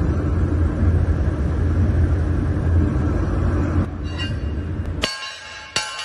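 A steady low rumble, then, near the end, two sharp hammer blows on a laser-welded 6 mm stainless steel T-joint plate, each leaving the steel ringing. The blows are a strike test of the weld's strength.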